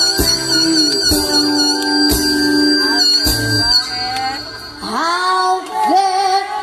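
Live band music heard through the concert PA: held chords with a few drum strikes, and a voice singing from about five seconds in.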